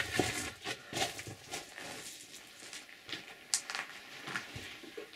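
Footsteps crunching and scraping on loose rock and rubble, in irregular steps and knocks as someone scrambles over a rock pile.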